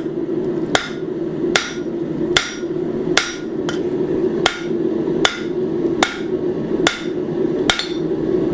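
Blacksmith's hammer striking hot steel on an anvil, about ten ringing blows at an even pace of a little over one a second, straightening a bent bar. A steady low hum runs underneath.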